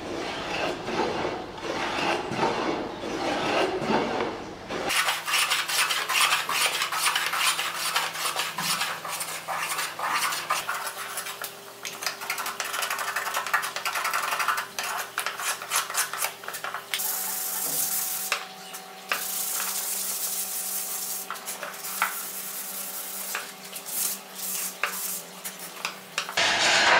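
Hand plane shaving the handle of a wooden spoon in many quick repeated strokes, each a short scraping swish as a shaving comes off the wood.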